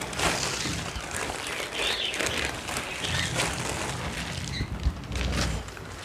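Polythene sheet crinkling and rustling, with loose bird seed and husks pattering, as the spilled seed is tipped out of the plastic onto another sheet.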